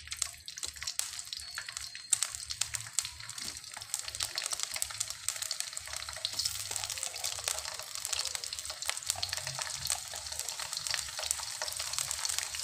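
Hot oil sizzling and crackling in a wok as pieces of smoked fish fry, with dense spattering pops throughout. The crackling grows louder about two seconds in.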